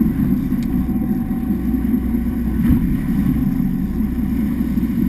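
Motorboat engine running steadily, a low, even sound.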